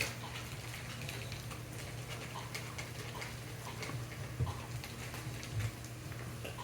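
Faint, irregular light clicks and taps, with two slightly louder knocks about four and a half and five and a half seconds in, over a steady low hum.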